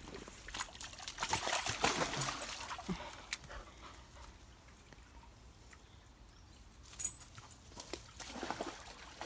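A dog splashing about in a shallow stream during the first few seconds. Then the stream trickles steadily, with a few more splashes near the end.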